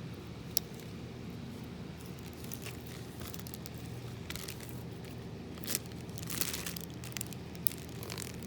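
Slime being handled by hand: scattered small crackles and pops, a few sharper ones about half a second in and in the second half, over a steady low hum.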